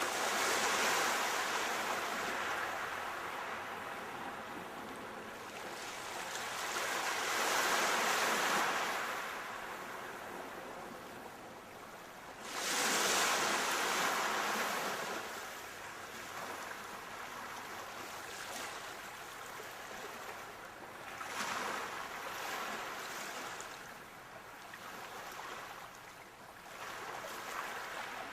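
Sea waves breaking in slow, rushing surges of surf. Three strong swells come about six seconds apart, then weaker ones near the end.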